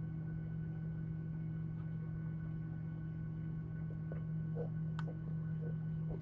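Steady low hum inside a Boeing jet airliner's cabin, with a few faint clicks a few seconds in.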